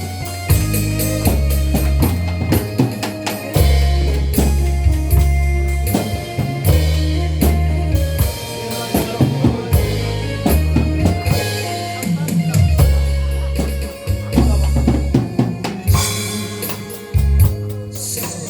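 Instrumental music with a steady drum-kit beat, kick and snare, over a held bass line, with no singing.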